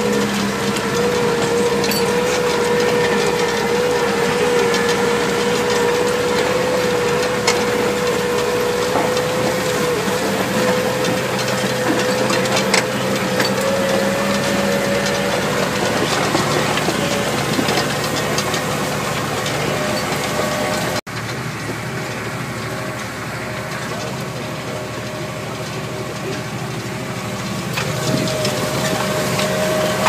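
Massey Ferguson tractor engine working steadily under load, pulling a six-furrow reversible plough through the field, with a steady whine over the running. The sound drops out for an instant about two-thirds of the way through, then carries on a little quieter, and the whine rises slightly near the end.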